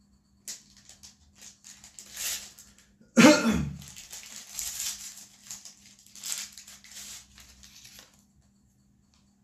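Plastic wrapping crinkling and rustling as it is handled and torn open, in short irregular bursts. A brief louder sound with a falling pitch comes about three seconds in.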